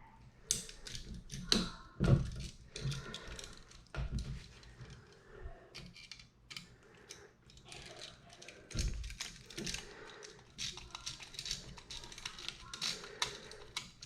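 Irregular small clicks and taps of hands and a screwdriver working on an electrical outlet as the neutral wire is fastened to its terminal screw, with a few dull thumps.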